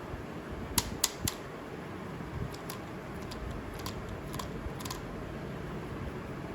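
Sharp little clicks, three in quick succession about a second in, then several fainter ones, over a steady low rumbling noise.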